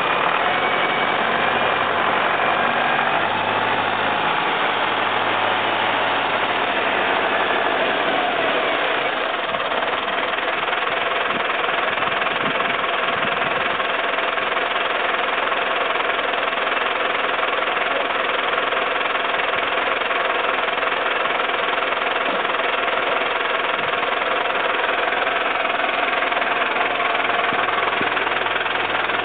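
Fiat tractor's diesel engine running steadily throughout, with the engine speed shifting in the first several seconds.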